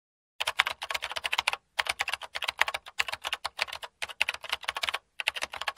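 Computer keyboard typing: fast runs of key clicks in about five bursts, separated by brief pauses.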